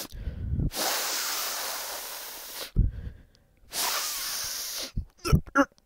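A man sniffing hard through his nose, snorting up crushed pill powder in three long hissing inhales with short low rumbles between them. A few short vocal sounds come near the end.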